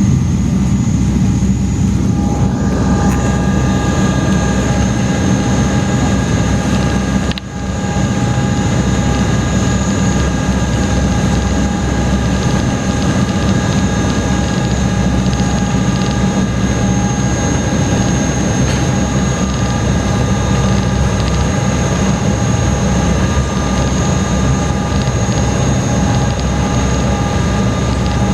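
Loud, steady drone of a high-speed passenger ferry's engines heard inside the cabin, a low rumble with a steady high whine over it. The sound dips briefly about seven seconds in.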